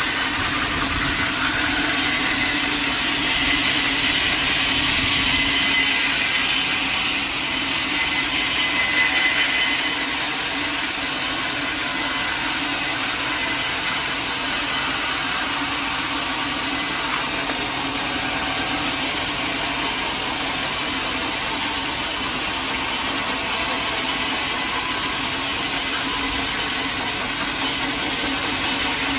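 Sawmill saw cutting steadily through a log, with a steady machine hum underneath.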